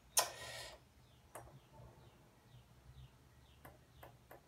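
Soft button clicks on a Sangean CL100 weather radio's keypad as it is being programmed, a few scattered presses that come closer together near the end, after a short burst of noise at the start. Faint high chirps repeat about twice a second underneath.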